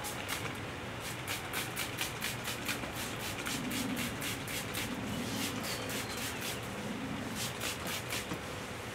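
Hand scrubbing of a sanded wooden tabletop with soapy water, short rhythmic back-and-forth strokes at about three to four a second with brief pauses. It is the wash that lifts residual sanding dust before the urethane coat.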